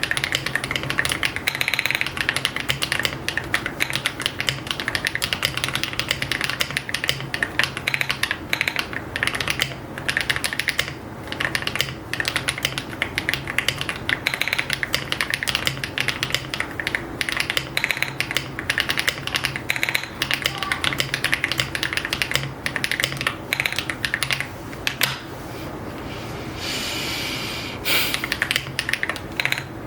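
Continuous fast typing on a custom AULA F75 75% mechanical keyboard with pre-lubed HMX Latte linear switches and copper metal keycaps: a dense, uneven stream of keystroke clicks with a few short pauses.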